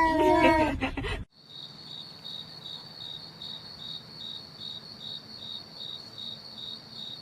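A cat's drawn-out meow fades out about a second in. After a sudden cut, a cricket chirps steadily, with about two to three high chirps a second.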